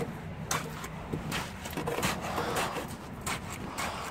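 Wooden stick jabbed and knocked repeatedly into wet concrete around a fence post, giving irregular dull knocks about one or two a second: rodding fresh post concrete to work out air bubbles.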